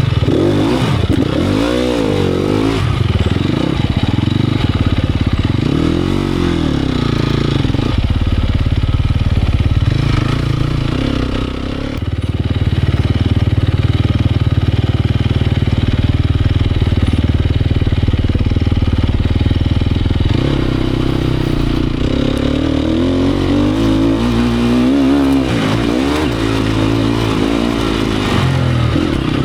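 Sherco 250 SEF Factory enduro motorcycle's single-cylinder four-stroke engine revving up and down with the throttle. It holds a steadier note for about ten seconds in the middle, then rises and falls again near the end.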